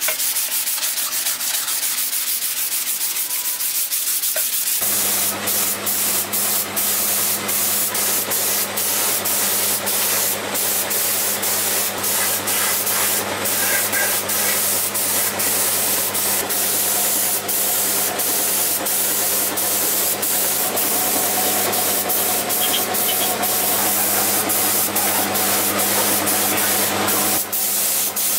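A sanding block rubbed over a primed motorcycle side cover. About five seconds in it gives way to the steady hiss of a gravity-feed air spray gun spraying paint, over a steady low hum that stops shortly before the end.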